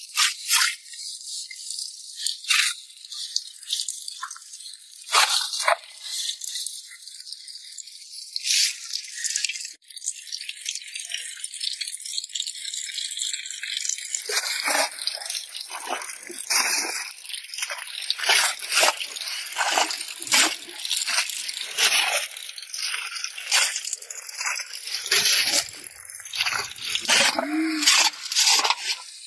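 Rain pattering on a plastic raincoat close to the microphone: a dense, irregular rattle of drops that grows heavier about halfway through.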